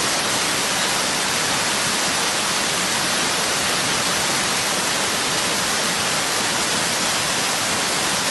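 Steady, loud rushing hiss, even and unbroken throughout, with no pitch or rhythm in it.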